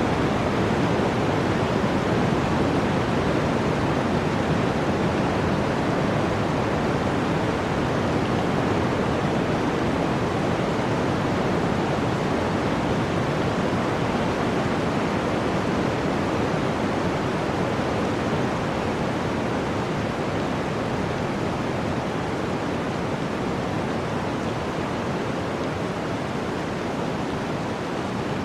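Flowing water rushing steadily, a dense even roar with no distinct splashes, easing a little in level toward the end.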